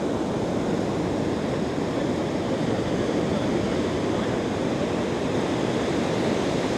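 Heavy ocean surf breaking and washing up a sandy beach: a steady, even rush of water.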